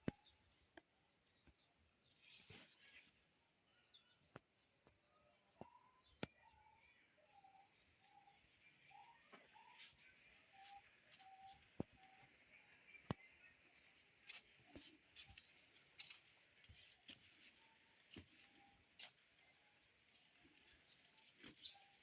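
Faint birdsong: two high, fast trills in the first few seconds, then a long series of short, lower notes repeating about twice a second, with scattered sharp clicks.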